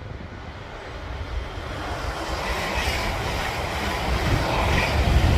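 Express passenger train on the West Coast Main Line, a broad rush of wheels and air that grows steadily louder as it closes on the bridge. Wind rumbles on the microphone underneath.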